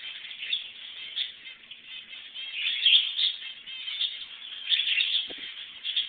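Mixed aviary flock of zebra finches, budgerigars and cockatiels chirping and chattering, many calls overlapping without a break. A short soft knock comes about five seconds in.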